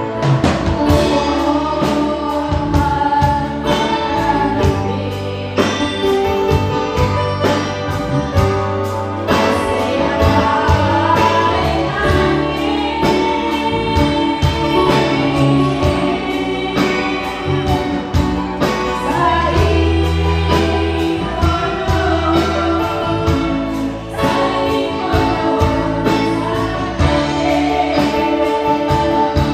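Several women singing together into microphones over a live band of keyboard and drum kit, with a steady beat.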